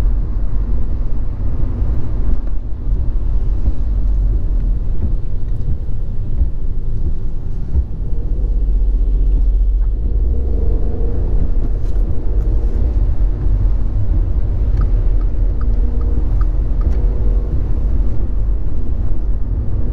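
Road noise inside a moving car on a wet road: a steady low rumble of engine and tyres.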